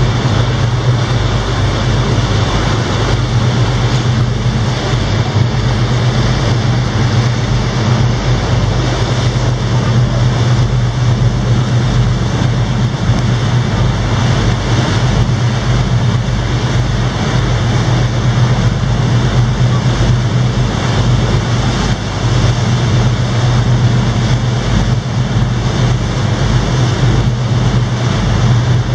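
Tour boat's engine running steadily with a low hum, over the rush of water along the hull.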